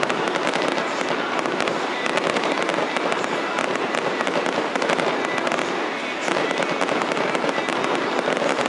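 Fireworks display with many shells bursting close together, making a dense, unbroken crackle of bangs and pops.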